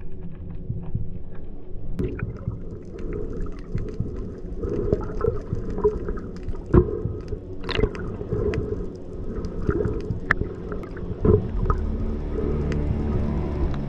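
Underwater sound picked up by a submerged camera while spearfishing: scattered sharp clicks and crackles over a low rumble of moving water.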